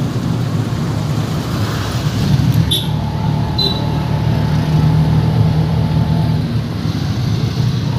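Steady engine and road rumble heard from inside a moving car, with city traffic outside.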